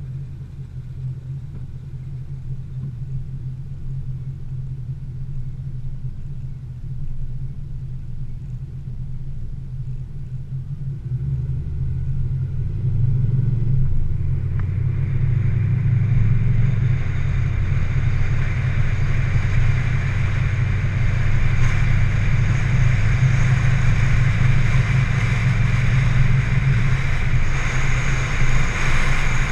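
A car engine running steadily. It grows louder about twelve seconds in, and from about fifteen seconds a broad hiss joins the low rumble.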